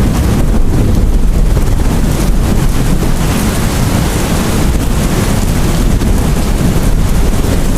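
Steady heavy rain with a deep, continuous rumble underneath, as of distant thunder or a storm.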